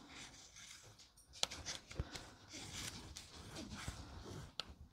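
Faint rustling and scraping of card stock being folded and its crease pressed down with a plastic bone folder, with a few light clicks.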